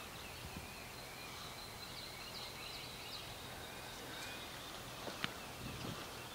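Faint outdoor ambience: a steady low hiss with distant birds chirping and a thin high steady tone, and one sharp click about five seconds in.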